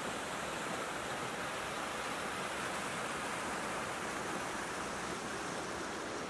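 Mountain creek rushing steadily over granite boulders in small cascades, an even whoosh of splashing water.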